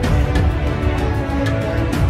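Background music with a pulsing low beat, held tones and sharp percussive hits.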